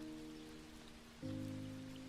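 Soft background piano music: slow, sustained notes ringing out, with a new low chord struck about a second in.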